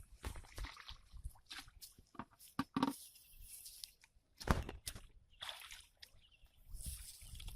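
Pond water sloshing and splashing in short, irregular bursts, with one louder splash about four and a half seconds in.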